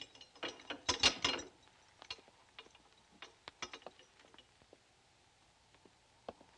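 Keys and the lock of a barred metal cell door clicking and rattling as it is unlocked and opened: a dense run of metallic clicks about a second in, then scattered lighter clicks.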